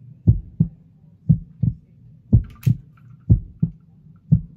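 Heartbeat sound effect: paired low thumps, lub-dub, about once a second, over a steady low hum.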